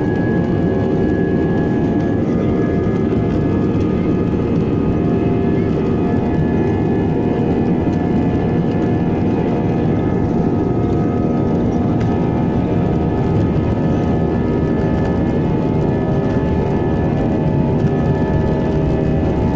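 Jet airliner's turbofan engines running steadily, heard from inside the cabin while the aircraft rolls along the runway: a deep rumbling noise with steady whining tones above it.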